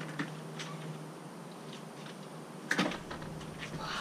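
Light footsteps and scuffing as a person walks into place, with one louder thud about three-quarters of the way through, over a faint steady low hum.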